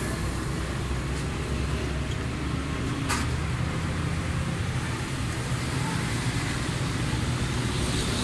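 Steady low hum of vehicle traffic and engines around the workshop, with one sharp click about three seconds in.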